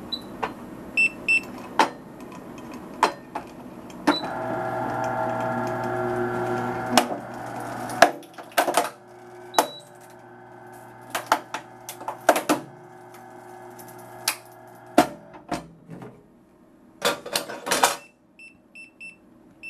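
Hard drive destroyer with autoloader running through a destroy cycle. It gives off sharp mechanical clicks and knocks, and a motor hum that runs steadily for about four seconds before dropping to a fainter hum. There are a couple of short high beeps.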